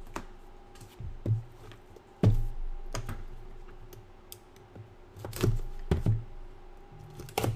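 Sealed trading-card boxes and a hard-cased card handled on a tabletop: about eight sharp knocks and thunks, the loudest a little over two seconds in. A small knife slits the box's plastic shrink wrap, which is then peeled off.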